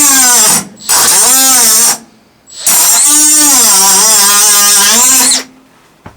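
Angle grinder grinding the leftover tabs off the edge of a cut-out in a van's sheet-steel side panel, in three runs of about one to three seconds each. Its whine drops in pitch as the disc bites into the metal and climbs again as it eases off.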